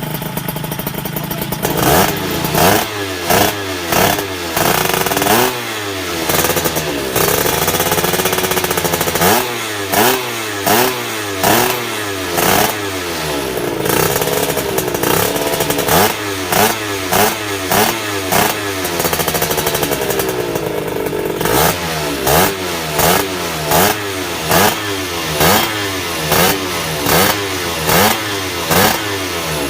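Stroked (+1.2 mm) Honda LS125 single-cylinder motorcycle engine idling, then revved again and again in quick throttle blips, about one a second, each pitch rising sharply and falling back, with a couple of longer held revs between.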